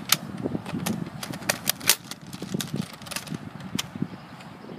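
Sharp plastic clicks from a toy Nerf revolver being handled at its cylinder, about a dozen at uneven spacing, thinning out near the end, over a low steady rumble.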